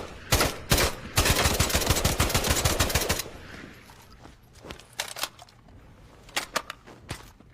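JM-3 assault rifle firing: a few single shots, then an automatic burst of about two seconds, followed by several quieter clicks.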